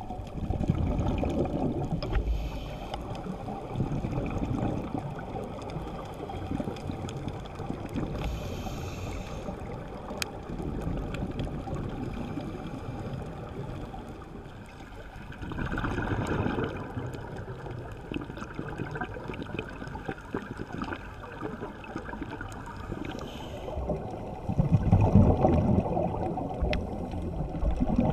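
Scuba diver's breathing on a regulator, recorded underwater through the camera housing: short hisses of inhalation and several rumbling bursts of exhaled bubbles, the loudest bubbling about 25 seconds in.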